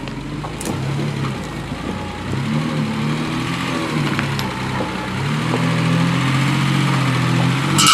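Unimog engine working at crawling speed over rocks, its pitch rising and falling with the throttle, and getting louder over the last few seconds. A brief high-pitched squeal comes right at the end.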